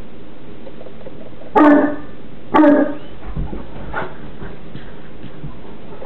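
Newfoundland dogs play-wrestling: two loud, short barking calls about a second apart, then a few faint short calls, a seal-like play noise.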